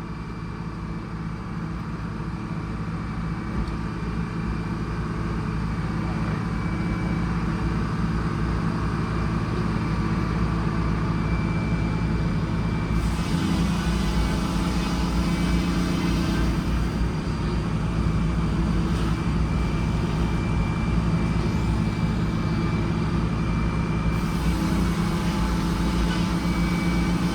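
Bus engine driving a sawmill, running steadily and building up over the first several seconds. A brighter hissing layer joins about halfway through and again near the end.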